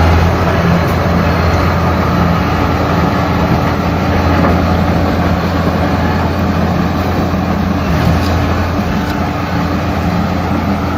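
XCMG XS223J 22-ton padfoot roller's diesel engine running steadily with a constant low hum.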